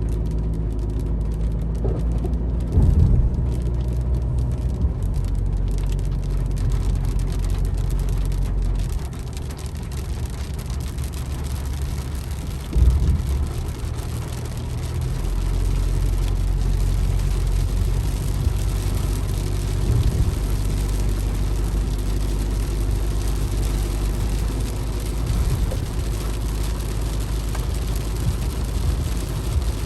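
Car engine running with a steady low drone while the car drives, with two brief louder jolts about three and thirteen seconds in.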